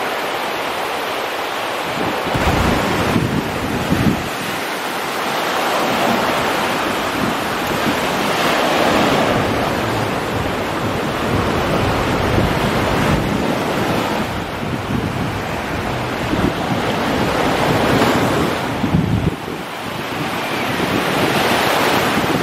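Black Sea surf breaking and washing up onto a sandy beach, swelling and falling back every few seconds, with wind gusting on the microphone.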